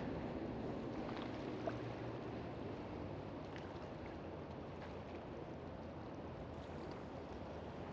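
Steady outdoor background noise, an even low rumble and hiss, with a few faint ticks.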